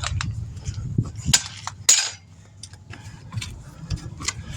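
Scattered metallic clinks and knocks of hand tools being worked against a steel wheel rim while a tire is taken off, with one short rushing scrape about two seconds in.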